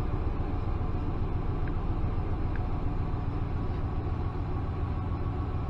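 2014 Dodge Ram V8 engine idling steadily, heard as a low even rumble with no misfire showing at the moment, after a repair to the cylinder 7 injector circuit.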